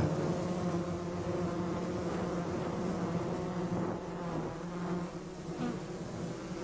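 Honeybees buzzing in a steady hum of wingbeats.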